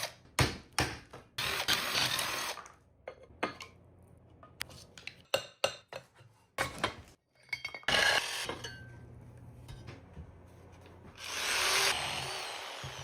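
A power tool run in three short bursts, about 1.5 s, 8 s and 11 s in, to remove half-inch bolts from an industrial electric motor, with sharp metal clicks and knocks between the bursts.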